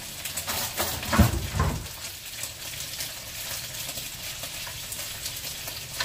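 Food sizzling in a frying pan as it is reheated on the stove, with a few knocks about a second in, the loudest a dull thump.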